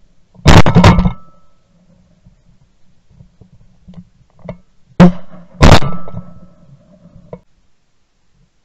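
Four loud shotgun shots from a Benelli SBE3 semi-automatic shotgun, in two pairs: two shots a little under half a second apart about half a second in, and two more about five seconds in, each with a short ringing tail.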